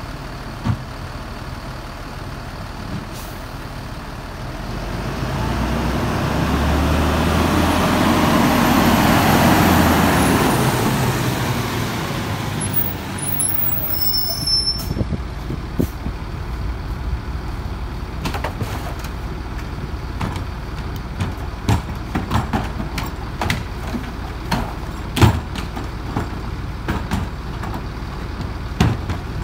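Freightliner M2 garbage truck's diesel engine, growing louder as the truck drives up and loudest about eight to ten seconds in. After that the truck idles while irregular knocks and bangs come from trash bags and carts being handled at its McNeilus rear-load hopper.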